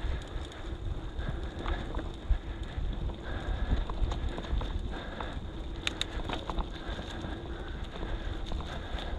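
Mountain bike rattling over a rough dirt trail: irregular knocks and clatter over a low rumble of tyre and wind noise.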